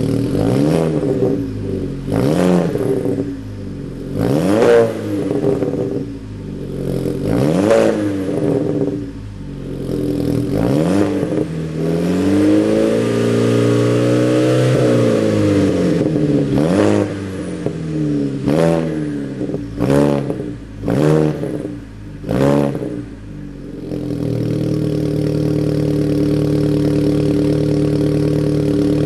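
Volkswagen Golf GTI engine and exhaust being revved while stationary: a string of quick throttle blips, a longer rev held for a few seconds around the middle, another burst of rapid blips, then settling back to a steady idle for the last few seconds.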